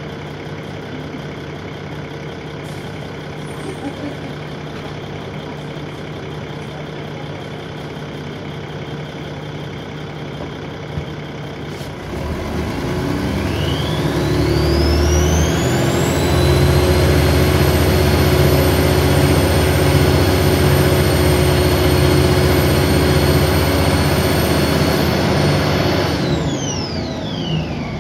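Dennis Trident 2 double-decker bus diesel engine idling, then pulling away about twelve seconds in. A loud turbo whine rises sharply in pitch, holds a high steady note while the engine works, and falls away quickly near the end as the driver lets off.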